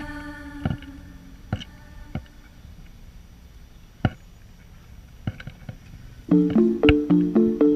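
Music of plucked string notes: a few scattered notes over a fading tail, then about six seconds in a louder, quick, evenly picked repeating pattern starts.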